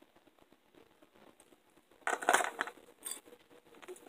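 Fishing lures and tackle being handled. There are faint small clicks, then about two seconds in a brief, loud rattle, and one more sharp click about a second later.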